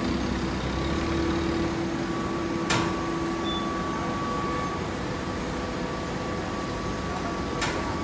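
Steady mechanical hum of hydraulic horizontal fibre balers running, with two sharp knocks, one about three seconds in and one near the end.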